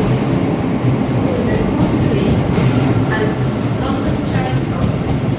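Passenger train running at a station platform: a steady rumble of wheels on the rails, with faint short squeals above it.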